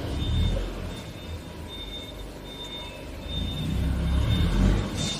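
Low, uneven rumbling from the phone being handled and carried, swelling twice, with a faint high-pitched tone from the workshop machinery coming and going in short stretches.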